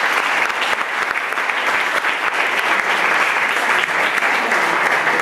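Audience applause: many people clapping at once, dense and steady throughout.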